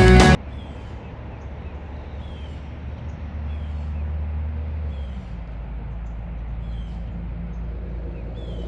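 Background music cuts off at the start. Then there is a steady low rumble, while a bird repeats a short, falling chirp roughly once a second.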